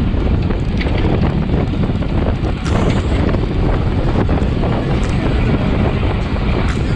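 Wind buffeting the microphone of a bike-mounted camera on a road bike moving at race speed, a steady loud rush, with a few sharp clicks.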